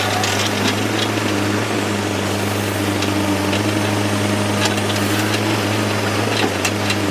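Excavator's diesel engine running steadily with a constant low hum, with a few light metallic clicks or clanks here and there.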